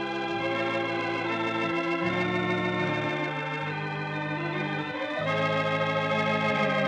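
Organ music in held chords that change every second or two, growing a little louder about five seconds in.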